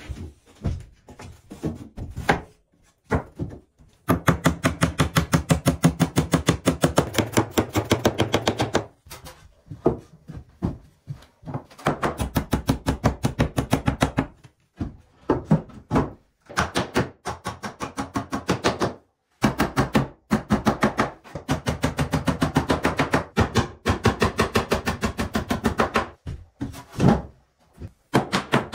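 Claw hammer rapidly tapping nails into pine wall boards: quick, even strikes several times a second in runs of a few seconds, with short pauses between runs and a few scattered knocks at the start.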